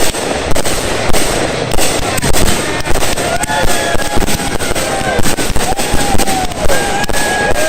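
Fireworks going off in a dense barrage: rapid sharp bangs over continuous crackling. From about midway, several high whistles glide down in pitch.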